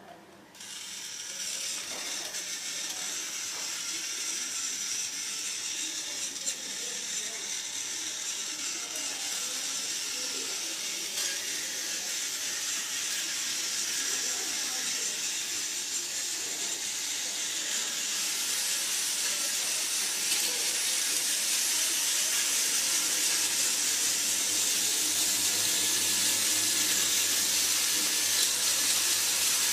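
Small electric motor and plastic gearbox of a Tomy Trackmaster / Plarail toy train switched on about half a second in, running with a steady high whine and gear hiss that grows gradually louder, a low hum joining near the end.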